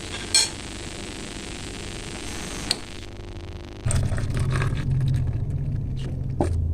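Steady hiss of a pot of spiced water on a gas stove, with a couple of light clicks; it cuts off about three seconds in as the burner is turned off. About a second later a louder low rumble starts, with scattered knocks and clinks of the pot being handled.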